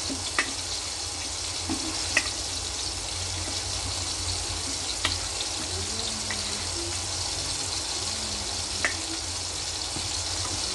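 Steady sizzle of stuffed bitter gourds (karela) frying in hot oil in a kadhai, with about four light clinks of a steel spoon against a steel plate as potatoes are coated in masala.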